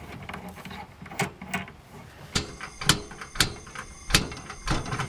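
Propane hose fitting being screwed onto a camp stove, then the stove's push-button igniter clicking about five times, roughly twice a second, with the burner not yet catching.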